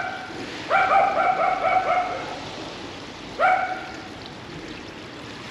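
A dog giving high-pitched whining calls: a short one at the start, a long wavering one about a second in, and another short one past three seconds. Rain hisses steadily underneath.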